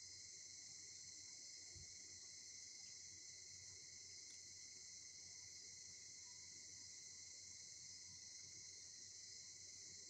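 Faint, steady, high-pitched chorus of insects such as crickets, running without a break.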